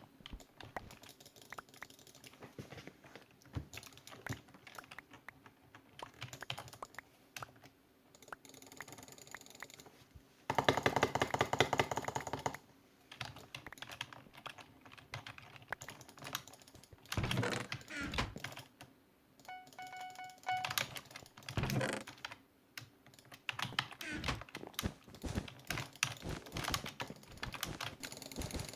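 A long run of quick clicks and taps, fastest and loudest in a dense burst about ten to twelve seconds in. A short, steady, pitched beep sounds near twenty seconds.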